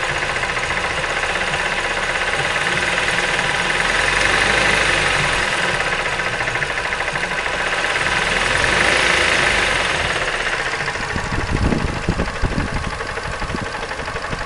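2005 Mazda 3 petrol engine running with a fast, rhythmic knock, an unexplained knock inside the engine. The sound swells in level twice, and a few irregular low thumps come near the end.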